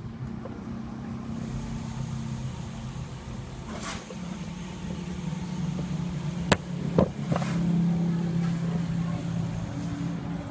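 A steady low motor-like hum, swelling a little past the middle, with a few sharp clicks and knocks about four, six and a half and seven seconds in.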